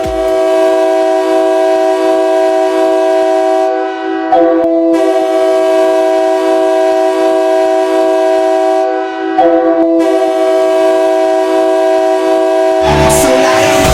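Ice hockey goal horn sounding a multi-tone chord in three long blasts of about four to five seconds each, with brief breaks between them. Goal song music starts near the end.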